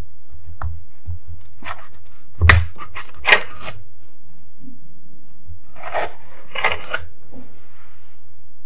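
Kitchen knife cutting through layered bread dough on parchment paper, in several short scraping strokes. The loudest stroke comes about two and a half seconds in, with a dull knock.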